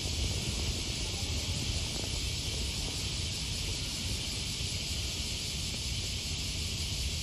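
Outdoor ambience: a steady high-pitched insect hiss, like a chorus of cicadas or crickets, with a low rumble underneath.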